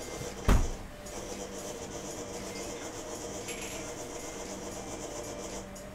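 Steady hum and whir of commercial kitchen machinery, with one heavy thump about half a second in.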